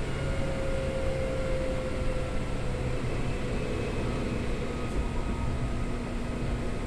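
Running noise heard inside the passenger car of a Seibu 2000 series field-chopper electric train: a steady rumble of wheels on rail with faint motor and gear tones, one of which drifts slightly lower in the first few seconds.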